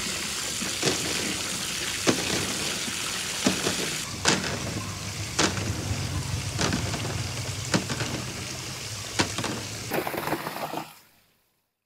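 A stream of water pouring and splashing onto small green fruits in a plastic basin and basket as they are rinsed, with light knocks about every second. The water cuts off near the end.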